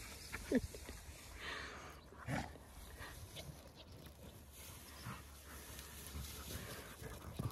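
A dog's short, high-pitched yip about half a second in, and a fainter one a couple of seconds later.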